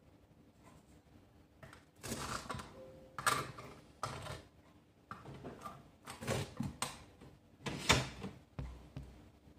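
A run of clicks, knocks and short scrapes from feeding tongs and hands working inside a glass reptile terrarium, starting about two seconds in, with the sharpest knock near the end.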